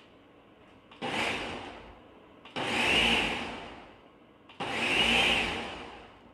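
Ninja blender pulsed three times, chopping cooked figs and lemons; each burst starts sharply and winds down over a second or so.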